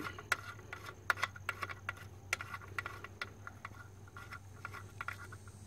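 Irregular light metallic clicks and taps as small washers and screws are handled and set on a metal plate, most of them in the first three seconds or so.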